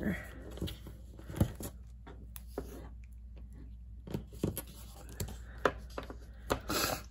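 Double-sided adhesive tape being pulled from its roll, torn off and pressed onto cardstock: a scatter of short taps and clicks with a few brief tearing rasps, the longest just before the end.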